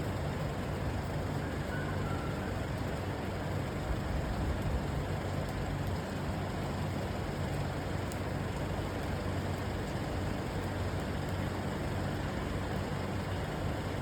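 Steady storm rain falling against a window, a continuous even hiss, with a low steady hum underneath.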